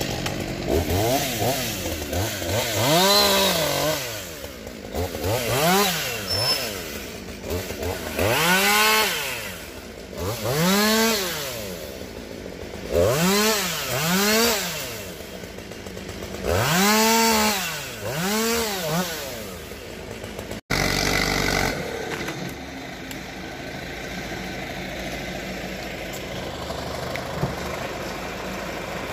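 Two-stroke chainsaw revved up and down in a string of short bursts, each rising then falling in pitch, as it cuts through the branches of a felled tree. After a sudden break about two-thirds of the way in, a forestry skidder's diesel engine runs steadily.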